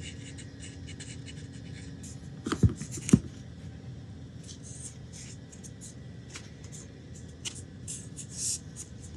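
Wooden parts being handled on a workbench: two sharp knocks about two and a half and three seconds in, then light scraping and rubbing as freshly glued wooden pieces are pressed into place.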